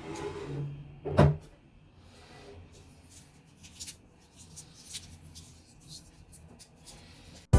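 A single sharp knock about a second in, like a cupboard door or drawer shutting, after a moment of handling noise; then faint scattered clicks.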